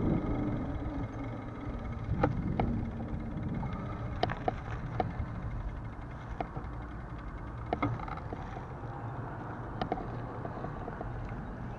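Bicycle riding over asphalt, heard from a handlebar-mounted camera: a steady low rumble from the tyres and the wind, with scattered sharp clicks and rattles from the bike at irregular times.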